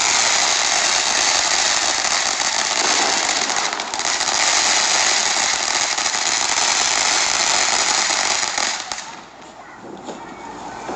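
Ground fountain firework spraying sparks with a loud, steady hiss that dies away about nine seconds in.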